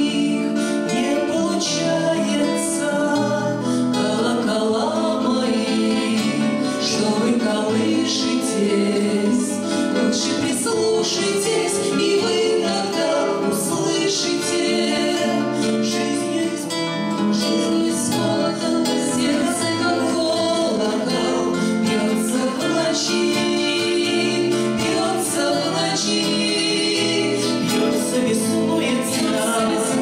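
Two women singing a Russian bard song together, accompanying themselves on two acoustic guitars.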